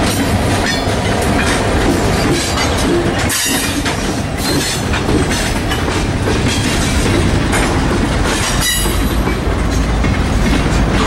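Freight cars (tank car, covered hopper and boxcars) rolling past at close range: steel wheels clacking over the rail joints over a steady rumble of the cars.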